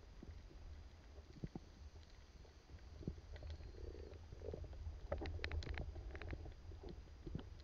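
Muffled underwater sound recorded on a camera below the surface: a faint low rumble with scattered clicks and ticks, busiest about five to six seconds in.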